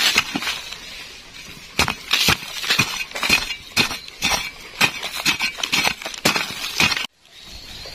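A metal digging tool striking and scraping into soil, giving a fast, irregular run of sharp chinks and crunches that stops abruptly about seven seconds in.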